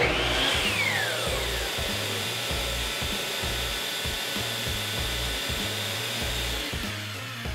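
Ridgid 12-inch miter saw motor spinning up for a moment and then winding down, its whine falling in pitch over the first second or two. A shop vacuum, started automatically by an auto-switch outlet when the saw runs, keeps running steadily after the saw stops, clearing the dust, and shuts off near the end.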